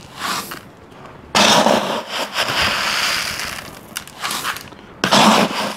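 Small-grain volcanic rock poured from a scoop into a plastic bucket of potting mix, a rattling pour of gravel. One long pour starts about a second in, and a shorter one follows near the end.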